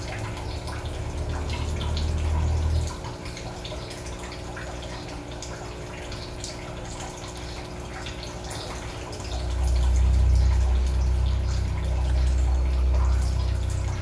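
Water trickling and dripping from a plastic spigot into a fine mesh net as hatched brine shrimp are drained from their hatching container, with scattered small drips. A low rumble rises for the first three seconds and again from about halfway through, over a steady low hum.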